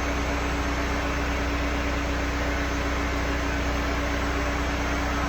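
Blow dryer running steadily: an even rush of air with a constant motor hum, unchanging throughout.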